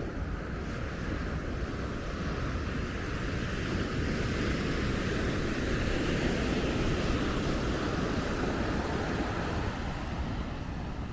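Sea surf washing onto a sandy beach, swelling through the middle and easing off near the end, with wind rumbling on the microphone.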